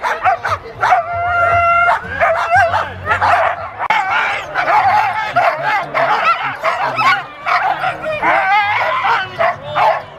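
A team of harnessed sled dogs yipping, whining and howling over one another in a continuous clamour, the excited noise of dogs held back at a race start. About a second in, one dog holds a single steady howl for under a second.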